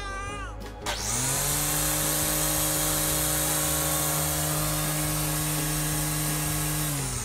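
A motor starts up about a second in, runs at one steady pitch with a loud hiss, and winds down near the end.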